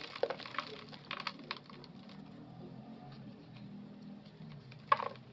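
Dry clay crumbling and crunching between fingers, its fragments and dust falling into a basin: a run of small crackles in the first second and a half, then one loud crunch near the end.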